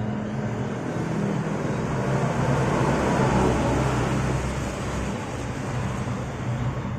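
Motor vehicle passing by, a low engine hum over road noise that swells to a peak about three seconds in and then fades.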